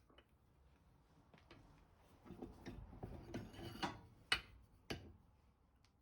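Handling noises: rubbing and scraping through the middle, with a few sharp clicks, two loud ones near the end.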